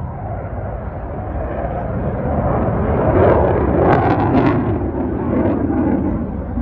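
F-16 fighter jet's engine roaring overhead during a flying display, swelling to its loudest about halfway through and then easing off.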